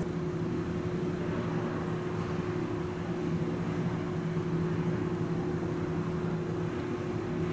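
Steady low mechanical hum, a constant drone that holds one pitch throughout, over a soft even hiss.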